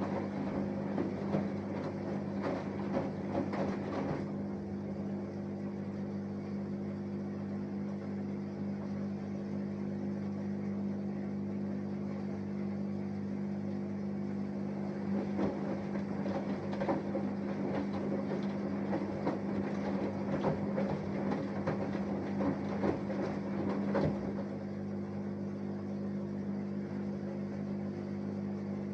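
Samsung Eco Bubble washing machine with an inverter motor running a wash cycle: a steady hum with irregular swishing and tumbling surges of washing during the first few seconds and again from about fifteen to twenty-four seconds in.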